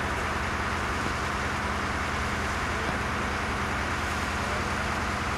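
Fire engines' diesel engines running steadily, a low drone under a constant hiss of spraying water.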